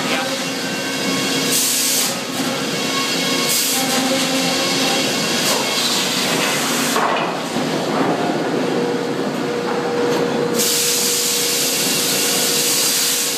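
Sawmill circle headsaw cutting a log as the shotgun-feed carriage runs it through the blade: a steady hum from the machinery under a harsh cutting hiss that comes in bursts, the longest starting about ten seconds in.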